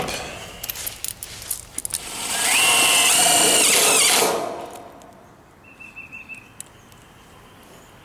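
Cordless drill running for about two seconds, driving a screw into a galvanized sheet-metal duct box. Its whine rises as it spins up, holds steady, then stops abruptly. A few light clicks of handling come before it.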